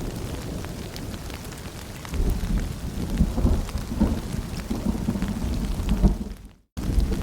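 Rain falling steadily with a low rumble of distant thunder that swells about two seconds in. Near the end the sound fades out to a moment of silence and cuts straight back in, like a looped track restarting.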